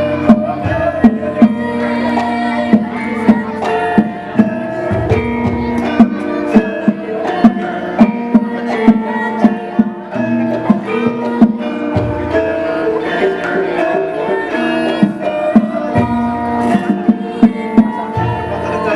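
Javanese gamelan ensemble playing: many ringing metallophone tones over sharp, regular drum strokes, with a deep low swell a few times.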